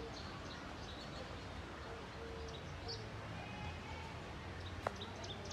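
Outdoor park ambience: a steady low background rumble with faint bird chirps, and a single sharp click about five seconds in.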